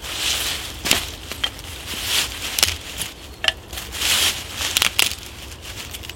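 Irregular crunching and rustling of dry forest litter, with several sharp snaps in between.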